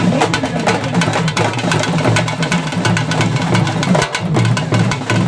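Karakattam folk drum ensemble of large frame drums and a barrel drum playing a fast, dense rhythm, with a low wavering pitched tone running under the beats.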